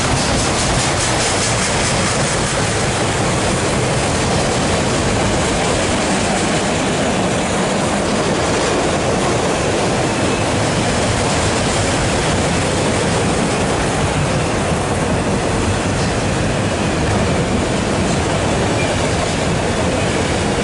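Empty autorack freight cars rolling past on the near track: a steady, loud rumble of steel wheels on the rails.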